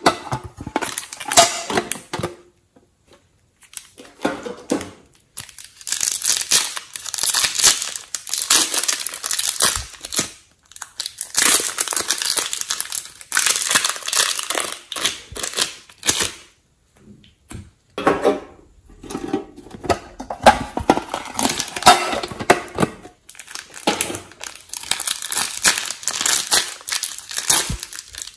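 Thin plastic packaging crinkling as it is handled: clear piping bags of soft clay being squeezed and worked open. It comes in irregular bursts with short pauses between them.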